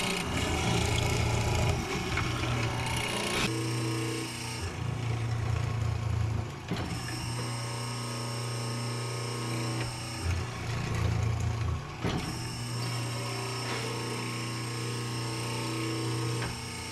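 Benchtop hollow-chisel mortiser running, its motor humming steadily while the chisel is plunged into a hard maple leg and drawn out again, the sound shifting every few seconds as it cuts.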